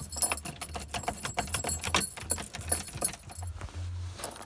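A bunch of keys jangling and clicking as the key is jiggled in the damaged ignition key cylinder of a 1995 Toyota Corolla, worked toward the ACC position. The jingling thins out about three and a half seconds in.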